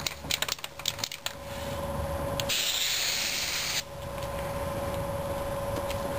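Aerosol can of rubberized undercoating sprayed in one hissing burst of about a second and a half, cutting off abruptly. A few light clicks and taps come before it.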